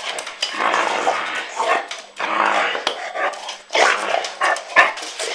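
Puppy growling in play in repeated rough bursts while it tugs at and mouths a person's hand and sleeve, with two short, sharp sounds about four and five seconds in.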